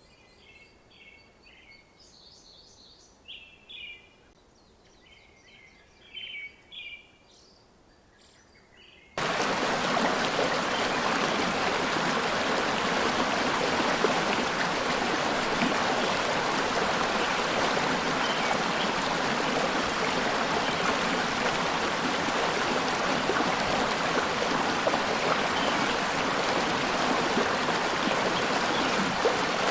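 A bird calling in short chirping phrases against near-quiet for about nine seconds. Then an abrupt cut to the loud, steady rush of a stream or waterfall, which lasts to the end.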